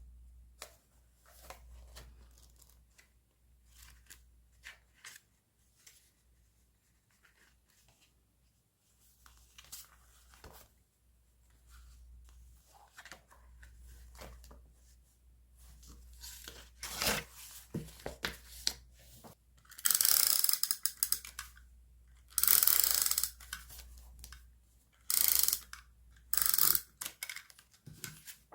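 Quiet paper handling with small clicks and rustles, then several loud rasping pulls, each about a second long, of masking tape being peeled off its roll.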